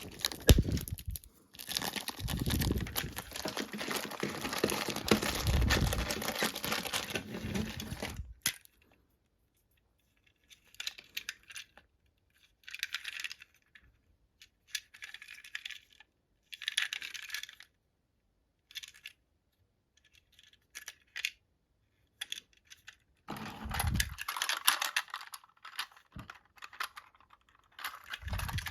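Plastic packaging crinkling and tearing while a toy train set is unwrapped, followed by short separate clicks and rustles of small plastic parts being handled, and more crinkling near the end.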